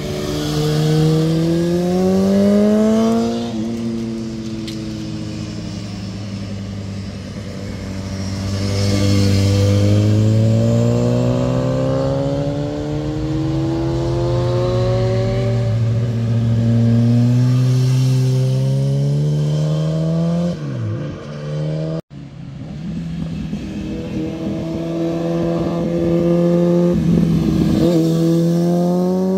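Motorcycle engines accelerating hard out of a hairpin bend, the pitch climbing with engine speed and dropping sharply at upshifts. Several bikes pass in turn, and the sound cuts abruptly from one to the next about two-thirds of the way through.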